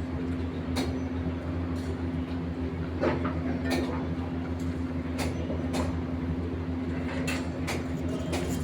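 A machine's engine or motor running steadily with a low drone, with sharp metallic knocks and clanks coming irregularly over it.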